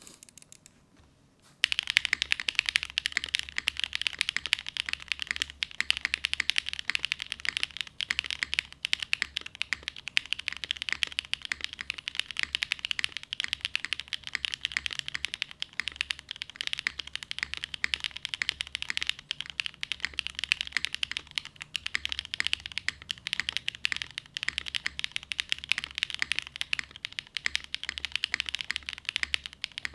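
Fast, continuous typing on a HEX.50FE custom mechanical keyboard: plateless O-ring mount, lubed Gateron RAW switches and GMK keycaps, the keystrokes coming thick and fast. It starts about a second and a half in, after a brief hush.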